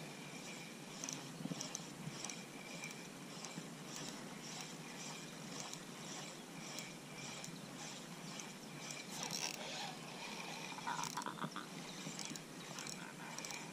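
Spinning reel being cranked at a slow, even pace as a lure is retrieved, giving a soft tick about twice a second.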